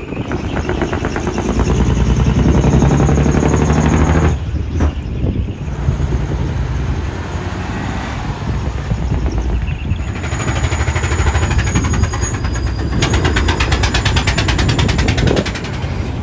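Heavy three-axle dump truck diesel engines pulling away and passing close one after another, a deep engine note loudest in the first few seconds. It drops briefly about four seconds in, then comes back, with a fast even pulsing late on as the next truck passes.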